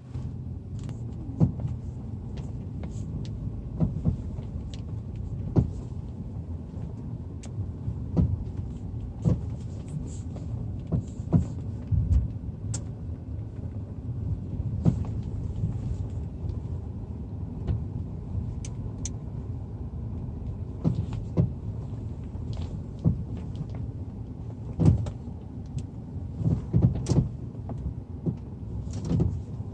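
Car suspension knocking while driving: sharp, irregular thumps every second or two over a steady low rumble of road noise, the sign of a suspension fault.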